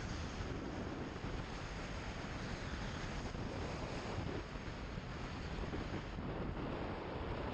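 Steady rushing wind noise on the microphone of a camera mounted on a moving motorcycle, heaviest in the low end, with no clear engine note standing out above it.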